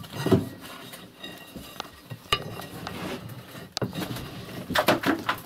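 Metal poker scraping and knocking inside the brick flue of a masonry stove through a hole opened in the brickwork, with a few sharp clinks, as soot is raked out of the clogged flue.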